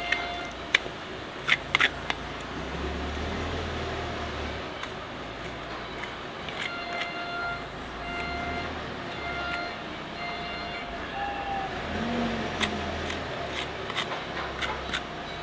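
Hoof knife paring a horse's hoof, its blade scraping and cutting the sole horn with a few sharp clicks, over a steady background rumble.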